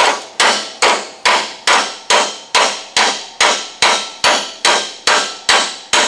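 Hammer striking a truck's steel door hinge to drive out the worn bottom hinge pin: steady, evenly spaced metal-on-metal blows, about two and a half a second, each with a short ring.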